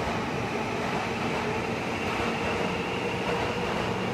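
Seibu 2000 series electric train standing at the platform, its onboard equipment giving a steady hum with several constant tones.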